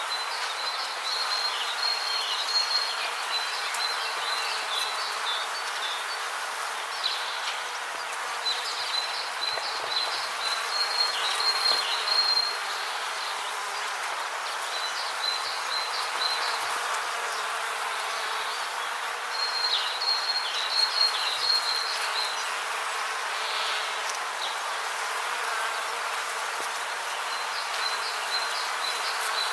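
Rainforest ambience: a steady hiss with phrases of high chirping trills that come and go every few seconds.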